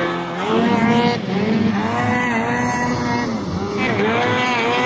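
Snowmobile engine running hard at high revs while towing a skier across open water, its pitch dipping and climbing again a few times as the throttle is worked.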